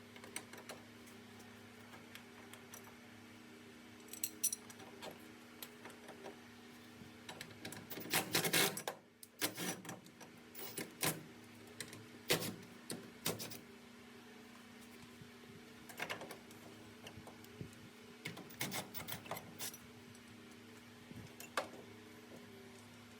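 Metal hand tools and hardware clinking and clattering in irregular bursts of sharp clicks and knocks, loudest and densest about eight to nine seconds in, with a steady low hum underneath.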